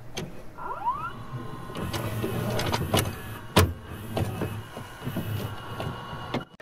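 Glitchy logo-intro sound effects: a short rising whine about a second in, then a jumble of clicks, knocks and crackle over a low hum, with one sharp click louder than the rest a little past halfway.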